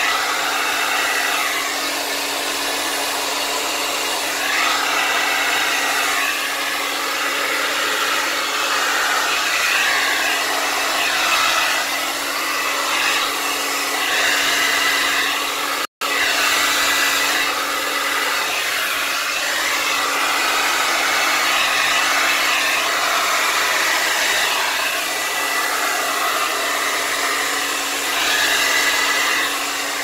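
Handheld hair dryer running continuously, a steady rush of air over a constant motor hum, the airflow noise shifting as the dryer is moved about. The sound cuts out for an instant about halfway through.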